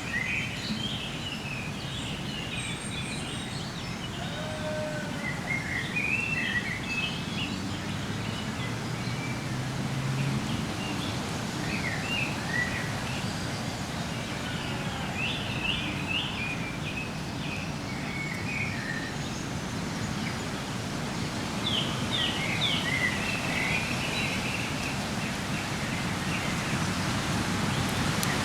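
Field recording of woodland birds: scattered short chirps and song phrases from several birds over a steady rushing noise of wind, which grows a little louder near the end.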